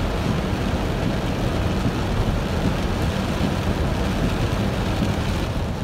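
Steady low rumble and rushing noise inside a car cabin as the car drives through heavy rain on a flooded road.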